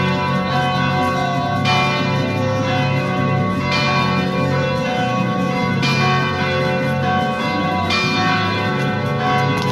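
Cathedral carillon bells ringing, a new stroke about every two seconds with each note ringing on beneath the next, so the tones pile up into a continuous chiming wash.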